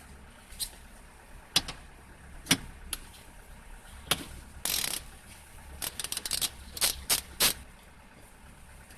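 A series of sharp clicks and knocks, irregular at first and then a quick cluster near the end, with a short hissing burst about halfway through, over a faint low hum.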